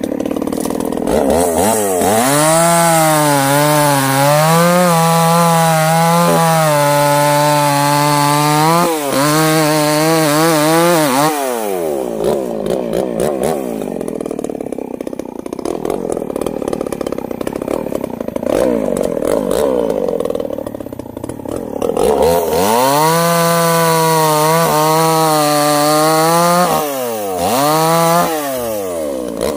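Two-stroke chainsaw revving up and held at full throttle as it cuts through a felled sengon log, then dropping back to idle for about ten seconds. Near the end it revs up again for a second cut, with a brief dip and a final rev.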